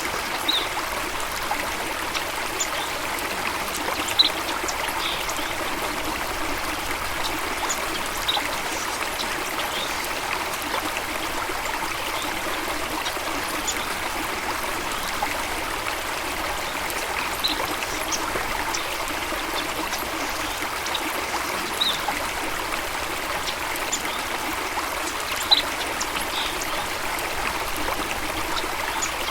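Flowing stream water running steadily with a continuous trickling rush. Brief high sounds are scattered over it, with two sharper ones about four seconds in and near the end.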